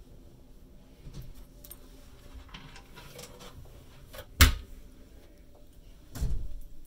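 Wardrobe cupboard doors being handled: a few light knocks, a sharp click about four and a half seconds in, and a duller thump near the end.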